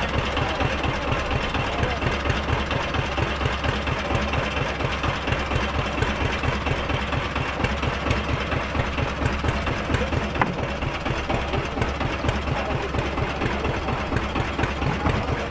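An engine idling steadily, with a rapid, even knocking beat.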